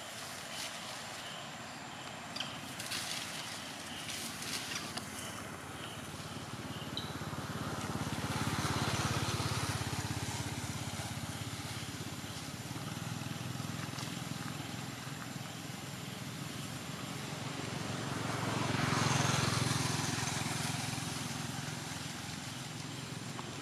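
Engine noise of passing motor vehicles, a low hum that swells and fades twice over a steady outdoor background.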